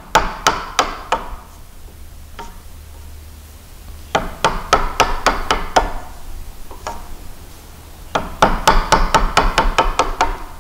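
Wooden mallet striking the plastic handle of a wood chisel, chopping waste out of a joint. Sharp knocks in three runs of rapid strokes, about four a second, with short pauses between.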